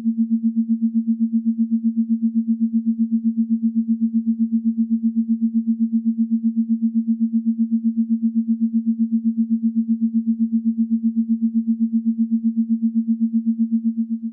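Steady low synthetic tone, a single pitch pulsing evenly about six times a second, presented as the 'sound' of a dwarf planet.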